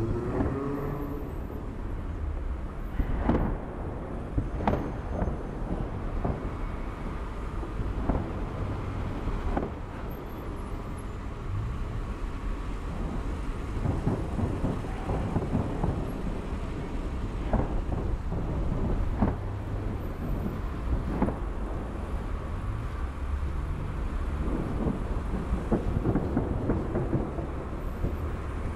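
Fireworks display: irregular bangs, one every second or two, over a continuous low rumble.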